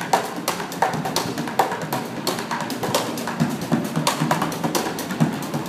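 Street drumming on improvised drums made of plastic containers: a quick, busy rhythm of sharp, hollow hits.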